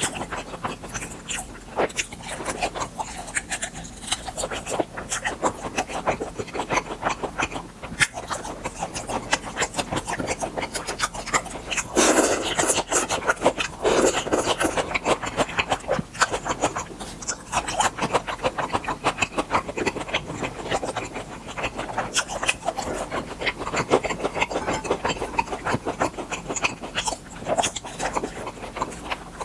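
Close-miked chewing of grilled beef offal: a dense, continuous run of mouth clicks and smacks, fuller for a moment about halfway through.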